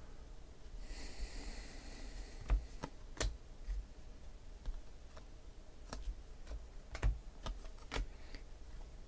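A stack of 2016 Panini Prizm football cards being flipped through by hand, giving scattered sharp clicks and taps as cards are pushed off the stack, with a short hiss about a second in.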